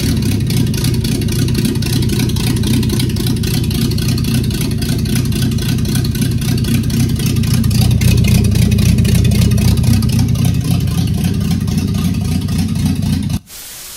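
Carburettor petrol engine of a 1970s Volvo running loud and steady, just started now that its missing ignition spark has been found. It cuts off abruptly about half a second before the end.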